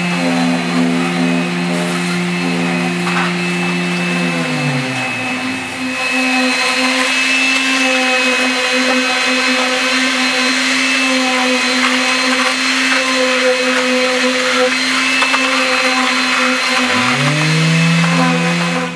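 Concrete mixing machinery running loudly: the electric motor of a mortar pump's hopper mixer churning wet concrete, with a steady hum. One motor winds down about five seconds in, and a motor spins up again near the end.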